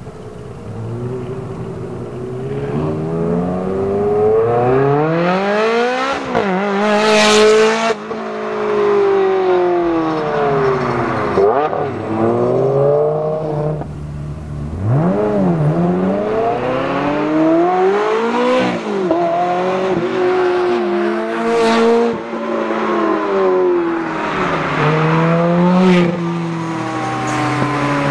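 Ferrari V8 sports cars, first a 360 Challenge Stradale on a Capristo aftermarket exhaust, then a 360 Spider, accelerating hard one after another. The engine note climbs with the revs and drops back at each upshift, and there are sharp cracks at about seven and twenty-two seconds.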